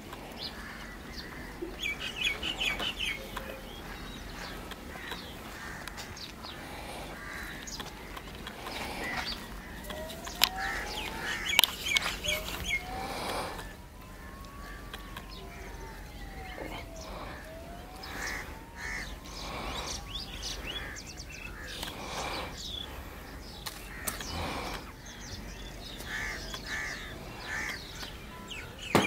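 Birds chirping and crows cawing outdoors, with a few sharp loud sounds about a third of the way in and a faint tone that slowly rises and falls in pitch through the middle.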